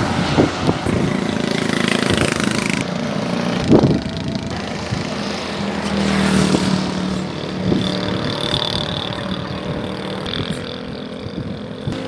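A motor vehicle engine running amid steady outdoor noise, with a few knocks; the sound changes abruptly a couple of times.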